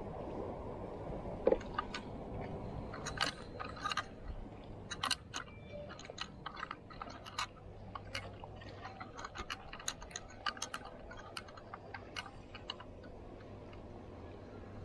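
Spinning rod and reel being handled, giving many irregular sharp clicks and ticks that are thickest in the middle and thin out near the end, over a low steady hum.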